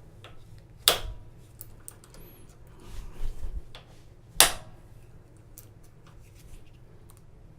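A bump hammer striking a bump key in an old Master Lock bike lock: two sharp taps, about a second in and again some three and a half seconds later, with faint clicks and a short rumble of the lock and key being handled between them.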